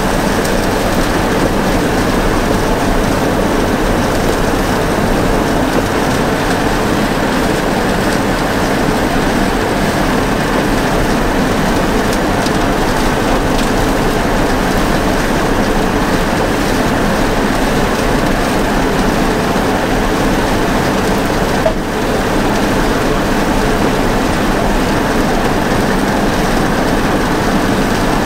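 International 856 tractor and New Holland 36 pull-behind forage chopper running steadily while chopping standing grass, a loud, even mechanical din with a brief dip about three-quarters of the way through.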